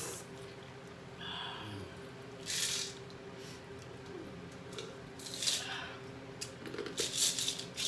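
Quiet drinking: sips and swallows of water from a cup and a plastic bottle, with a few short breathy noises among them over a faint steady hum.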